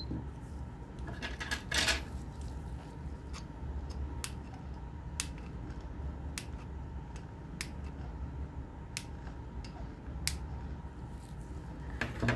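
Flush cutters snipping excess component leads off a freshly soldered circuit board: a string of sharp, short clicks about once a second over a low steady hum.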